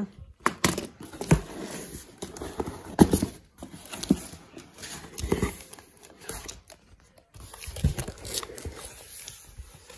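Cardboard shipping box being pulled open and handled: flaps and cardboard scraping, irregular knocks, and rustling and tearing of the packaging.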